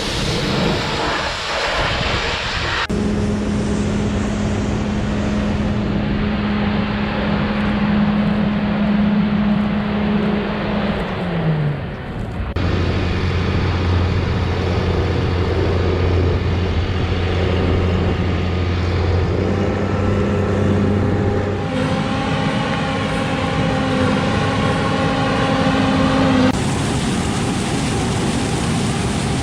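Heavy farm machinery engine running steadily, heard in a string of cut-together clips whose sound changes abruptly every few seconds. In one the engine note drops briefly about eleven seconds in.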